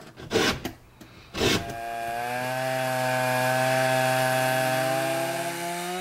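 A few short strokes of a file on a chainsaw chain. Then a Stihl chainsaw fitted with an Alaska mill runs steadily under load, ripping a plank lengthwise from a raw log. Its pitch sags a little near the end.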